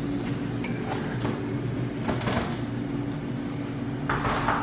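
Light clatter and rustling of bottles and containers being moved around the shelves of an open refrigerator, over a steady low appliance hum. The loudest rustle comes near the end.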